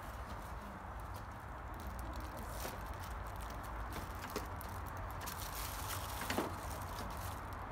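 A few light knocks and bumps as a window air conditioner's sheet-metal case is lifted into a window frame, the loudest a little over six seconds in, over a steady low hum.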